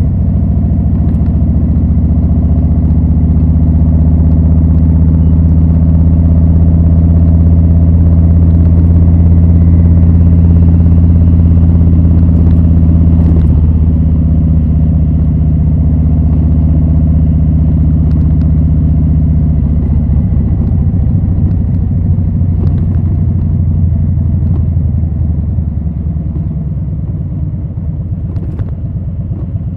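Harley-Davidson Low Rider S's Milwaukee-Eight 114 V-twin running through Rinehart slip-on exhausts, holding a steady, even note for the first two-thirds. Near the end the revs drop and the exhaust note turns rougher, more uneven and quieter.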